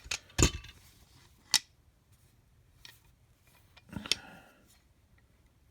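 Husky groove joint pliers being worked by hand: a handful of sharp metallic clicks and clacks as the jaws open and close and the slip joint shifts, the loudest about half a second in and another cluster near the end.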